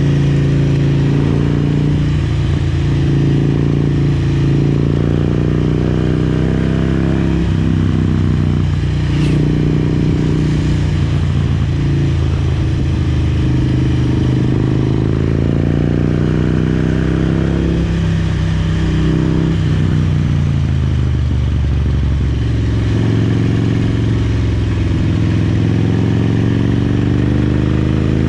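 Harley-Davidson Road King's Twin Cam 88 V-twin running under way, its engine pitch stepping up and down several times and climbing again near the end as the rider works the throttle and gears.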